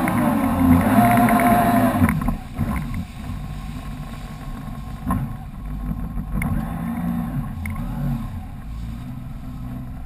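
Personal watercraft (jet ski) engine running at speed with rushing spray. The throttle comes off about two seconds in, and the engine falls to a lower, quieter idle with small revs as the craft slows.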